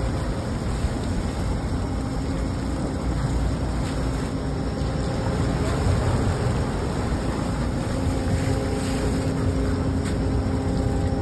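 Sportfishing boat's engines running steadily, a constant low hum, mixed with water rushing and churning along the hull.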